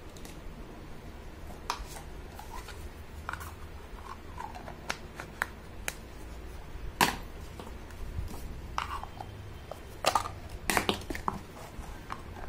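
Small hard-plastic toy kitchen pieces being handled: scattered clicks, taps and rubbing, with a sharp knock about seven seconds in and a cluster of clicks and knocks near the end.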